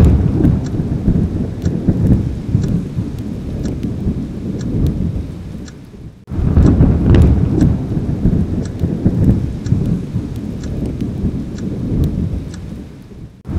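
Looping sound effect of a fire burning: a deep, rumbling noise with scattered sharp crackles. It fades down and starts again suddenly about six seconds in.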